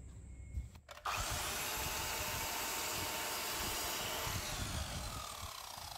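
Sliding compound mitre saw starting up about a second in and cutting through a white skirting-board strip, a loud steady saw noise. Near the end the blade is released and winds down with a falling whine.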